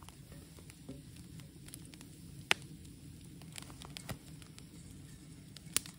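Wood fire crackling in an open fire pan, with scattered small clicks and two loud sharp pops, one about two and a half seconds in and one near the end, over a steady low rush.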